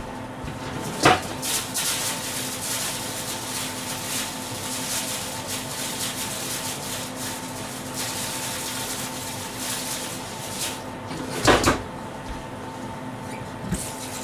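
Pots simmering on a gas stove, with a steady hum and a hiss underneath. A light knock of kitchenware comes about a second in, and a louder clatter of pots and dishes comes near the end.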